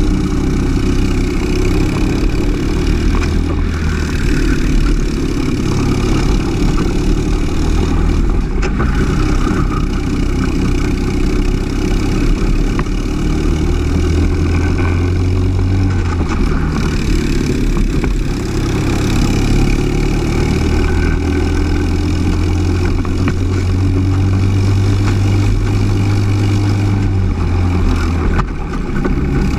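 Briggs & Stratton LO206 four-stroke single-cylinder kart engine running at race pace, its note rising and falling with the throttle through the corners.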